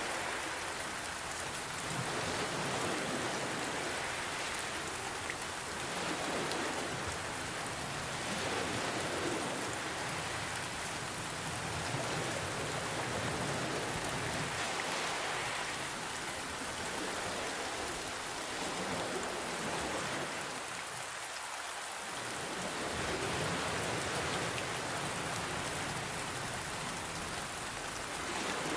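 Steady rain hiss mixed with gentle ocean waves, the sound swelling and easing every few seconds.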